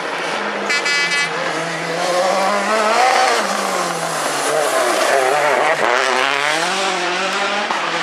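Rally car engine running hard at close range: the revs fall away as it brakes and shifts down for the corner, then climb again as it accelerates out.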